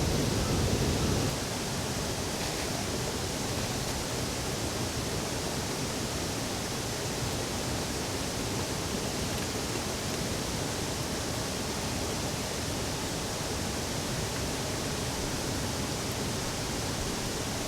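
Steady hiss of heavy rain. There is a louder low rumble for the first second or so.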